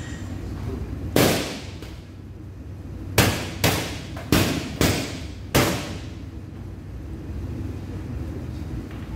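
Six sharp knocks, one about a second in and five more in quick succession between about three and six seconds, each ringing briefly, over a steady low hum.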